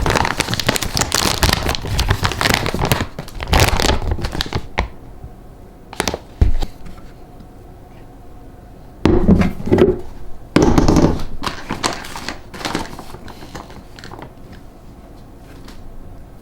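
Crinkling and rustling of the plastic packaging of Shakeology powder as it is handled, in a long stretch at first and in two louder bursts later, with a few sharp clicks between.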